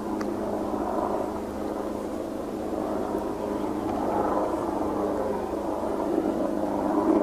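Steady low drone with a constant hum underneath, unbroken throughout; no distinct call stands out from it.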